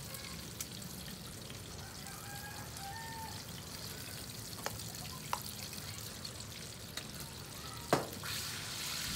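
A metal utensil knocks against a stainless steel bowl a few times while chicken pieces are turned in it, the loudest a ringing clink near the end. Behind it is a steady faint hiss of oil frying.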